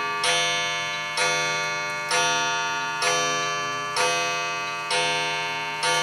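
Ticking-clock sound effect made of a ringing, bell-like note struck about once a second, each strike fading away before the next.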